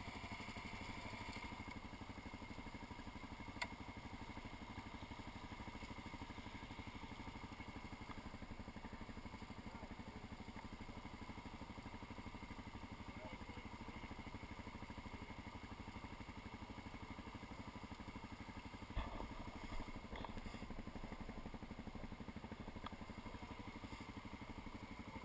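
Suzuki DR-Z400 dual-sport motorcycle's single-cylinder engine idling steadily while the bike stands still. Two brief knocks stand out, one a few seconds in and one about three-quarters of the way through.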